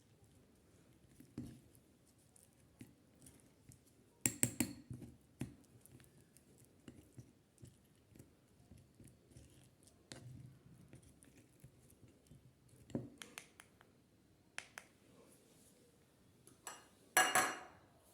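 Small objects being handled: scattered clicks and taps, with a louder clatter about four seconds in and the loudest one near the end.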